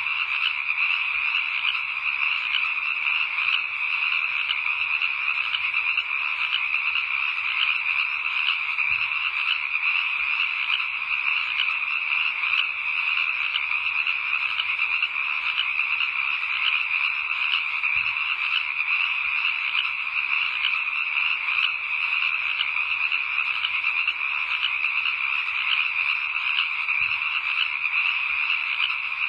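A steady night chorus of frogs, dense rapid trilling that runs on without a break.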